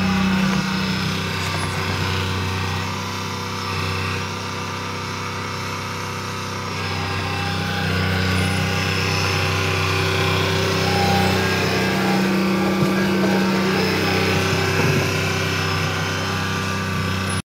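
Skid steer engine running steadily, easing off slightly about three seconds in and picking up again around seven seconds.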